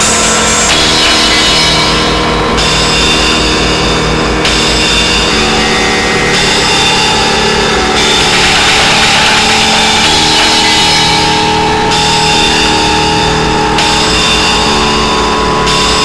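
Drone-noise music: a dense wall of distorted, grinding noise over held tones, with a fast low pulse underneath. The high layers cut in and out in blocks every couple of seconds.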